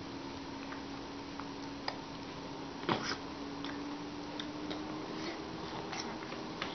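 Baby sucking on a lemon half: a few short, soft wet lip smacks and clicks, the loudest about three seconds in, over a steady low hum.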